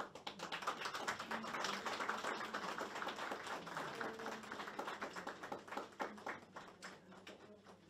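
A small group of people clapping, a dense uneven patter of hand claps that thins out near the end.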